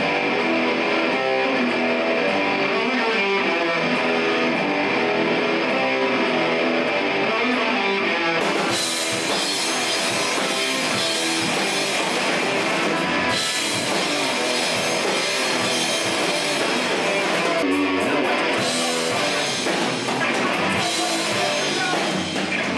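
Rock band playing live: electric guitar and drum kit. The sound fills out in the top end about eight and a half seconds in as the full band comes in harder.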